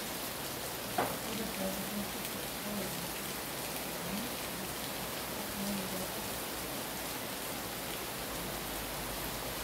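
Steady rain falling, an even hiss, with one sharp knock about a second in.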